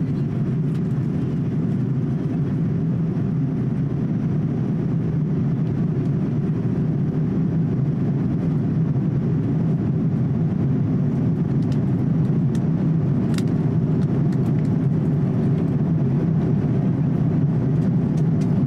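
Steady cabin noise of a Boeing 787-8 in flight, the even low rush of engines and airflow heard from inside the cabin. A few faint clicks sound about two-thirds of the way through.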